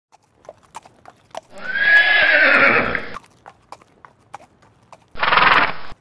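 Horse neighing with scattered hoof clip-clops: a long whinny about a second and a half in, then more hoof clicks and a second, shorter call near the end. Both calls stop abruptly.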